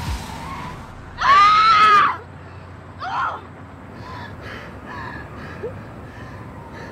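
A woman screams once, a long, high, loud cry that rises and falls in pitch, then gives a shorter cry and a few faint, short sobbing cries.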